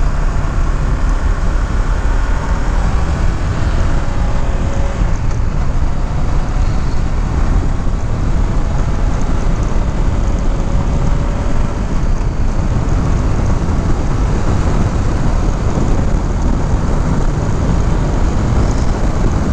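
Honda CBR500R's parallel-twin engine running steadily at road speed, mixed with heavy wind rush on the microphone.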